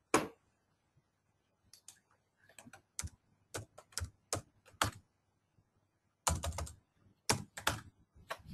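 Computer keyboard keystrokes: sharp separate clicks in irregular short runs with pauses between, as a date is typed into a form field.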